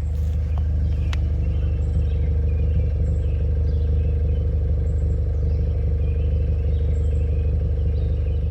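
Scion FR-S's FA20 flat-four engine running at a steady, unchanging speed. It sounds through a catless longtube header, straight front pipe and HKS Hi-Power catback, giving a steady low drone.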